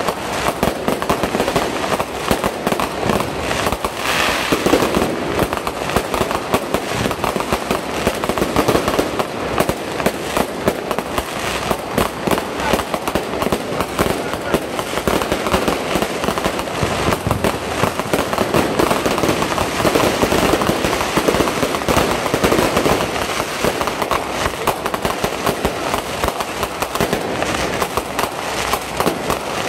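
Aerial fireworks going off in a rapid, unbroken stream of bangs and crackles as shells burst overhead.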